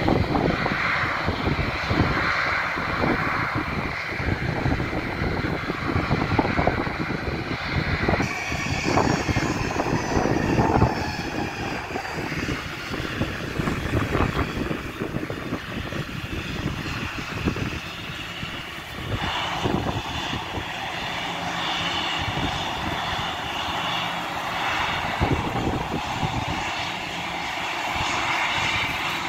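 Boeing 737 airliner jet engines running at taxi power: a steady rumble with a high whine that grows stronger about two-thirds of the way through as the jet taxis closer.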